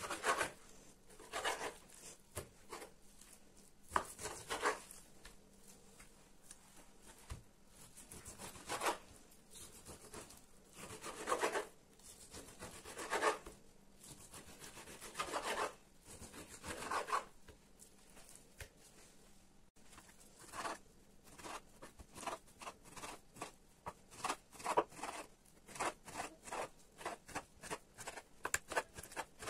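Kitchen knife cutting raw meat on a wooden cutting board. In the first half come long drawn slicing strokes, a second or two apart. Later the cuts turn short and quick, a few a second, as the meat is diced into cubes.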